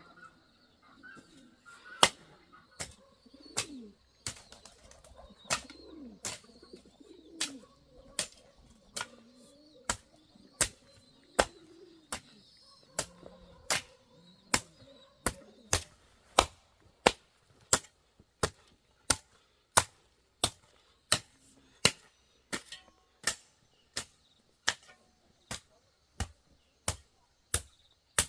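Regular sharp strikes, like steady chopping, at first less than two a second, then about two a second and louder from about halfway through.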